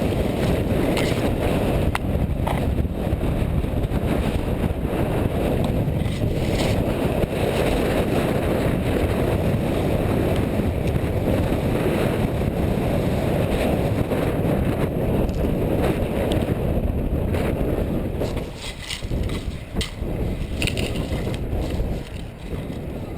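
Strong gusting wind buffeting the microphone in a loud, steady rumble that eases off about eighteen seconds in, with a few faint scattered clicks.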